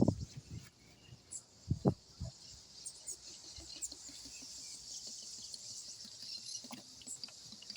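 Steady high-pitched buzz of insects, with a few faint knocks and clicks.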